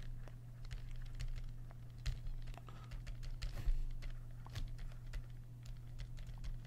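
Pen stylus tapping and scratching on a tablet screen during handwriting: a string of small, irregular clicks over a steady low hum.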